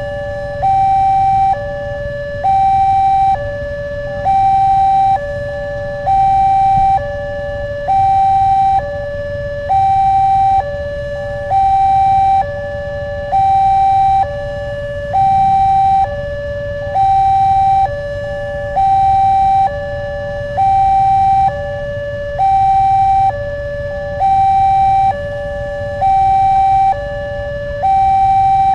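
Railroad level-crossing warning siren from the loudspeaker on the signal post: an electronic two-tone alarm alternating between a louder higher note and a lower note, each held about a second, repeating steadily. It sounds while the barriers are down, warning that a train is approaching.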